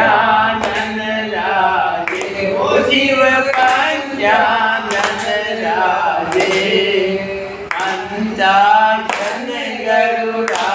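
A group of voices singing a devotional chant together, with a sharp clap or strike about every one and a half seconds keeping the beat.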